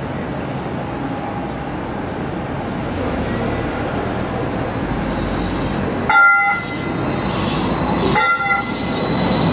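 A Brookville Liberty modern streetcar rolls up and passes close by. Its horn sounds two short toots about two seconds apart, the first some six seconds in.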